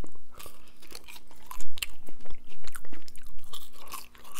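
Close-miked chewing of a sauce-dipped McDonald's french fry: irregular crunchy clicks and mouth sounds.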